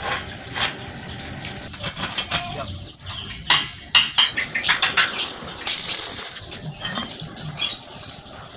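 Irregular metallic clanks and knocks of steel chassis pieces and tools being handled, with a short hissing burst about six seconds in.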